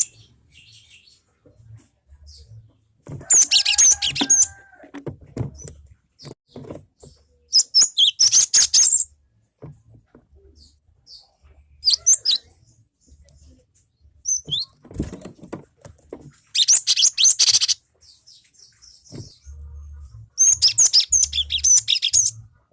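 Cinereous tit (gelatik batu) singing: about six bursts of high, rapid chirping phrases a few seconds apart, with quiet gaps between.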